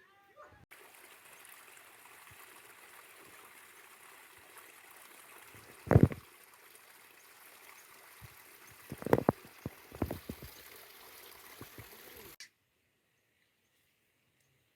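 Steady rush of running water, like a stream, with a few loud knocks about six, nine and ten seconds in; it cuts off suddenly near the end, leaving near silence.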